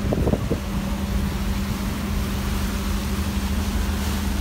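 Catamaran excursion boat under way: its engines give a steady low drone with one constant hum. Wind noise and the rush of the churning wake run through it.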